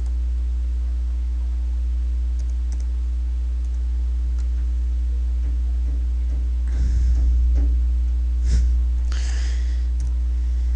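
Computer keyboard typing: a few scattered keystrokes and clicks, busier in the second half, over a steady low electrical hum.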